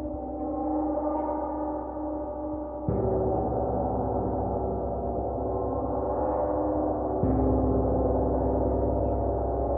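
A gong ringing in a long, dense wash of many tones, struck softly again about three seconds in and once more about seven seconds in, each stroke swelling the low hum.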